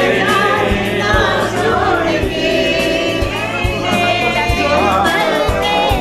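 A song with a steady beat, about two beats a second, with voices singing over it.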